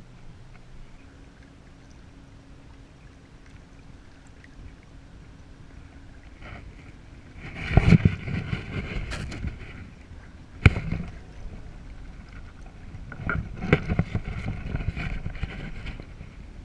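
Water splashing and sloshing against a kayak hull close to the microphone, in two loud stretches about halfway through and near the end. A single sharp knock comes between them. The first seconds hold only faint lapping.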